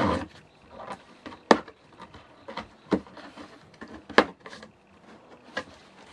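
Scissors cutting open the taped seam of a cardboard shipping box: a short rasp of tape and cardboard at the start, then four sharp snips about a second and a half apart, with faint scraping on the cardboard between them.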